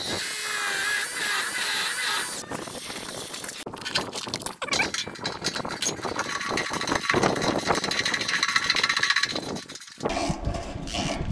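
Bosch GBH 2-26 rotary hammer drilling into concrete for about two seconds. Then a socket ratchet clicks again and again as a concrete screw is driven into the fresh hole.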